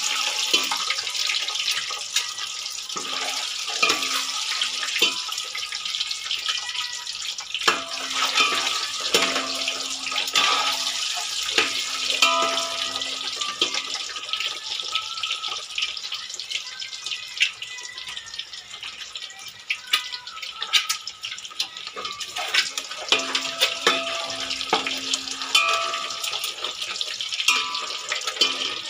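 Boiled eggs frying in hot oil in a steel pot, with a steady sizzle. A steel ladle clinks and scrapes against the pot as the eggs are turned.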